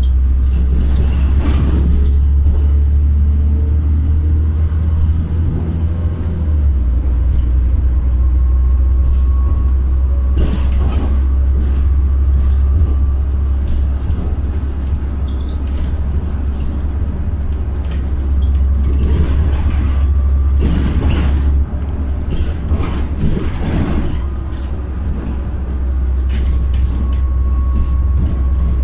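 Interior ride noise of a LiAZ 5292.67 city bus under way: a loud, steady low engine and driveline drone with road noise, the drone shifting about six and a half seconds in, and occasional short knocks and rattles from the body.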